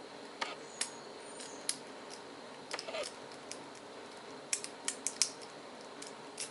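Homemade rake working the pin stack of an old Globe padlock held under a tension wrench: irregular sharp metallic clicks and scrapes in small clusters as the pins are raked. The pins are stiff, seized with rust.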